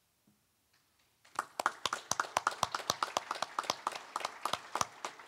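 A small group of people clapping, the separate claps distinct rather than a dense roar; it starts about a second in and thins out near the end.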